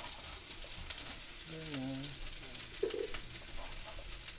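Fried rice with butter, garlic and onion sizzling steadily in a wok over a gas burner, with a few light clicks.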